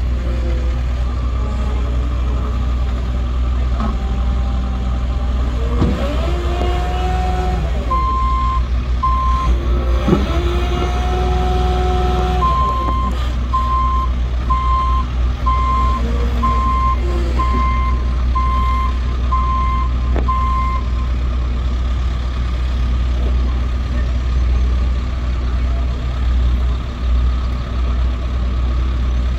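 A heavy diesel machine running steadily, its engine revving up and settling back twice, with a reversing alarm beeping about once a second: a couple of beeps a quarter of the way in, then a run of about nine.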